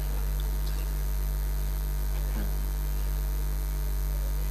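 Steady electrical mains hum from the stage sound system, with no speech over it.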